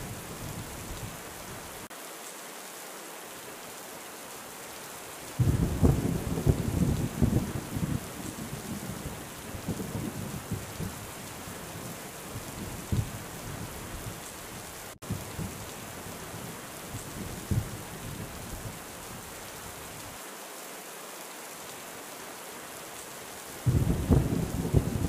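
Thunderstorm: steady heavy rain hissing, with a loud rolling peal of thunder breaking in about five seconds in and rumbling on for several seconds, then another near the end. The sound cuts out for a split second midway.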